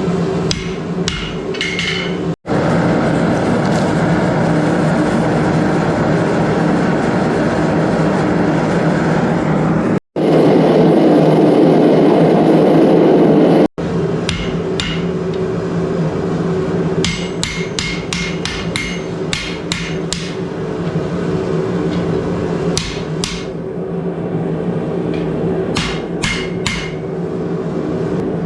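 Hammer blows on steel at the anvil, forging a sword blade: a few strikes near the start, then runs of quick blows through the second half, over a steady roar with a low hum. The sound cuts off abruptly three times between clips, the middle clip holding only the louder steady roar.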